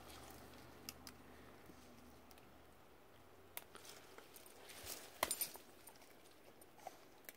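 Dogs gnawing and tugging at a small dead tree's bark and branches: faint, scattered crunches and twig snaps, the loudest a quick cluster of cracks about five seconds in.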